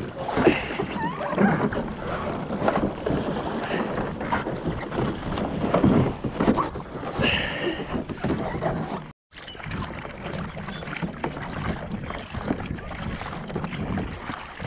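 Water splashing and sloshing against sea kayak hulls close to the microphone, with scattered knocks and bumps as the boats are handled during a rescue beside a swimmer. The sound cuts out for a moment about nine seconds in.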